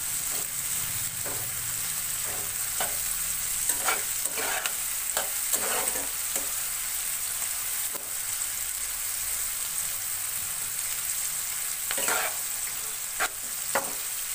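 Sliced onions and tomato pieces sizzling as they fry in oil in a non-stick wok, with a steady hiss. A spatula stirs and scrapes through them in irregular strokes, busiest about a third of the way in and near the end.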